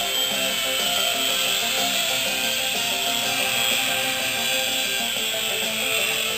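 PicooZ miniature indoor RC helicopter in flight, its tiny electric motor and rotor giving a steady high whine, with music playing over it.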